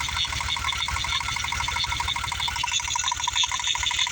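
VW VR6 narrow-angle V6 engine idling with a misfire: it keeps running but is missing, from water in the ignition. A fast, even pulsing runs through the idle.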